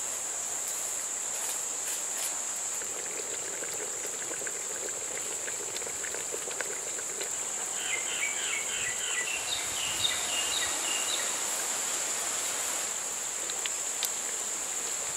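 Insects droning steadily at one high, even pitch. About eight seconds in, a bird gives a rapid run of short chirps lasting about three seconds.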